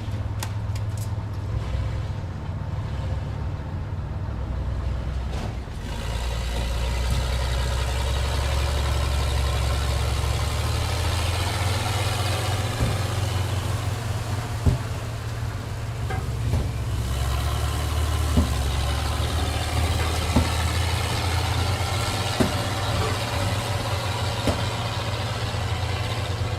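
Automobile repair shop ambience: a vehicle engine idling steadily, with a broader mechanical noise growing stronger about six seconds in. Sharp metallic clanks sound every couple of seconds through the second half.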